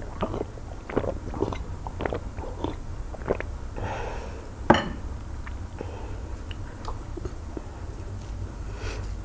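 A person gulping water from a drinking glass, with a run of short swallowing clicks about three a second for the first three seconds or so. Then comes a brief breath out and one sharp knock about halfway through, as the glass is set down, followed by faint mouth sounds.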